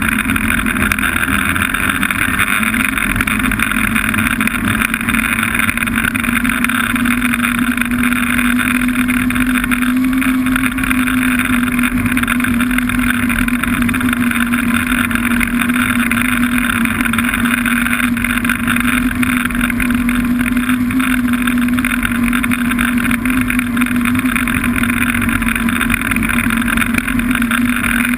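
Snowmobile engine running steadily at cruising speed: a constant drone whose pitch rises slightly about eight seconds in and then holds.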